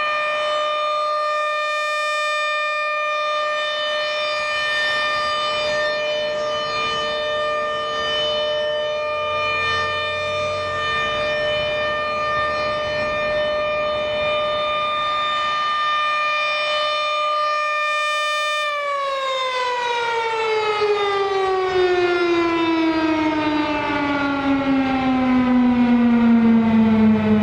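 ASC RM-130 electromechanical outdoor warning siren sounding its steady Alert Signal tone, then shutting off about two-thirds of the way through and winding down, its pitch sliding steadily lower.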